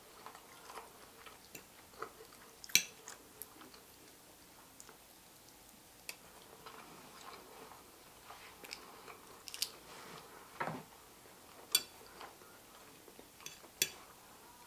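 Quiet eating sounds: chewing, with scattered sharp clicks of a fork against a plate. Four of the clicks stand out, a few seconds apart.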